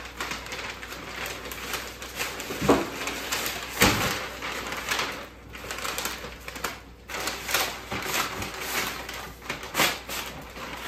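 Pink butcher paper rustling and crinkling in irregular handfuls as it is folded and pulled around a brisket, with two low thumps about three and four seconds in.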